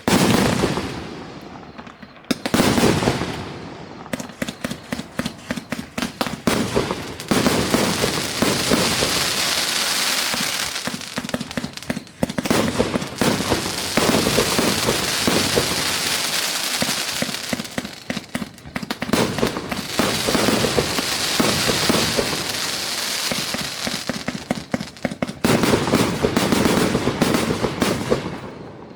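A multi-shot fireworks display cake firing: shots launching and bursting in quick succession, with long stretches of dense rapid popping and crackle. A big burst at the start and another about two and a half seconds in are among the loudest moments.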